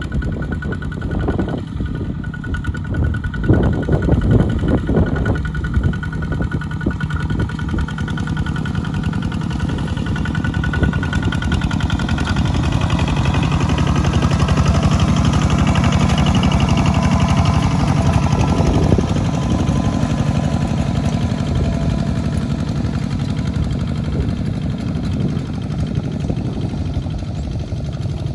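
Single-cylinder diesel engine of a two-wheel walking tractor running under load as it hauls a trailer through mud, with a rapid, steady chugging beat. A few heavier knocks come in the first few seconds, and the engine gets louder around the middle.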